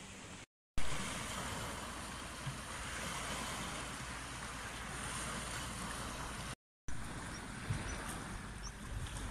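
Small waves washing and lapping at the shore, with a steady low wind rumble on the microphone. The sound drops out to silence twice for a moment, once about half a second in and again near seven seconds.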